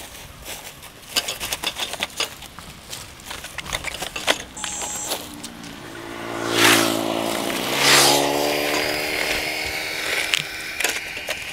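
Plastic litter and a woven sack crackling and rustling as rubbish is handled, then a motor vehicle passing close by on the road, its engine note sinking as it goes.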